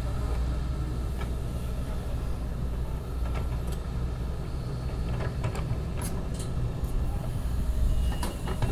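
Kobelco crawler excavator's diesel engine running steadily under digging load, a low even rumble, with a few light clicks and clanks scattered through it.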